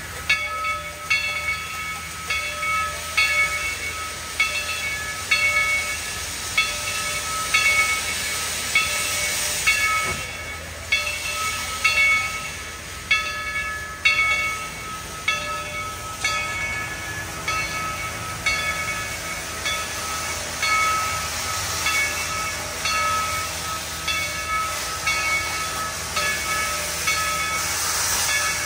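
Steam locomotive's bell ringing steadily, about one strike a second, over a continuous hiss of steam from the engine.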